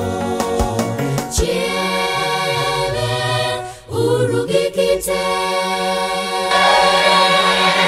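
Gospel choir singing a Dholuo song over instrumental backing. Percussion hits stop about a second and a half in, leaving long held sung notes with a short break near the middle.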